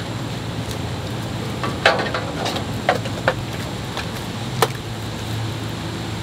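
Packing material and a small cardboard box being handled: a few short sharp crackles and taps about two to five seconds in, over a steady low hum.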